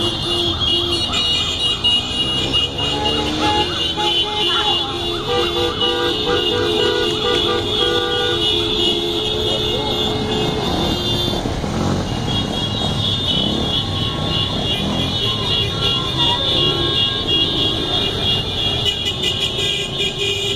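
A procession of motorcycles passing with engines running and horns honking, several horns held for seconds at a time, over a general traffic din with voices. A steady high-pitched shrill runs over it all, breaking off briefly around the middle.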